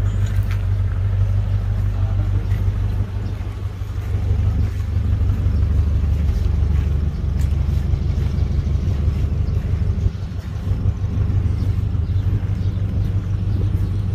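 Owner-type jeep's engine idling steadily, a constant low note with nothing rising or falling.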